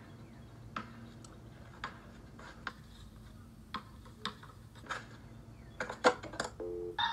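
Basketball bouncing on an outdoor court: a series of sharp knocks about once a second, coming a little faster around six seconds in. A short beep follows just before the end.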